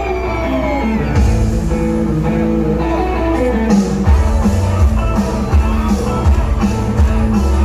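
Rock-and-roll band playing live, with electric guitar, bass and drums coming in together about a second in and settling into a steady beat.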